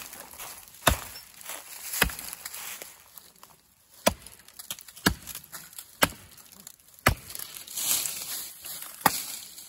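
Cold Steel Trail Boss hickory-handled axe chopping into a thin elm trunk: seven sharp strikes, about one a second, with a pause after the second.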